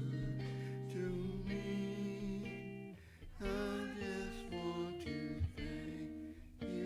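Instrumental music of held chords that change every second or so, dipping briefly about three seconds in.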